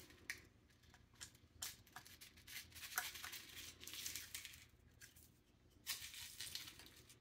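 Faint clicks and scraping of a small self-tapping screw being turned into a PVC end cap, first by hand and then with a Phillips screwdriver, the screw cutting its own threads in the plastic.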